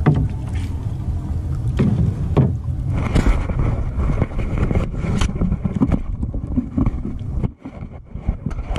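A small outrigger boat being paddled in shallow water: irregular knocks and splashes over a heavy rumble of wind and handling noise on the camera. The rumble briefly drops away near the end.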